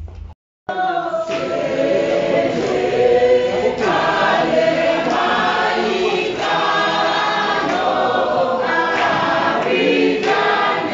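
Choir of many voices singing together, starting abruptly about half a second in.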